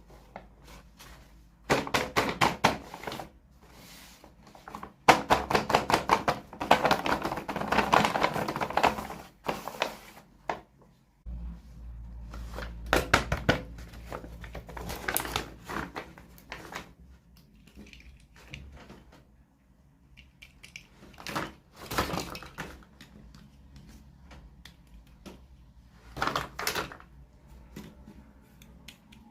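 Toy packaging being unwrapped by hand: bursts of rapid crinkling and crackling, the longest about five seconds in, with scattered taps and knocks between them.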